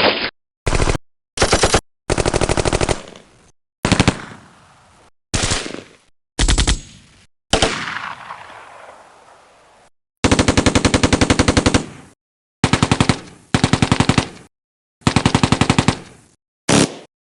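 Machine-gun sound effects played one after another: about a dozen short bursts of rapid automatic fire separated by brief silences, some trailing off in an echo. The longest burst, near the middle, runs about two seconds.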